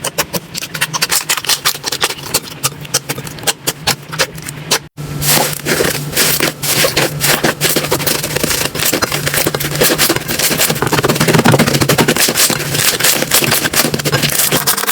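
Slime being squished and worked, a rapid run of sticky clicks and crackling pops. The sound drops out for an instant about five seconds in and comes back denser.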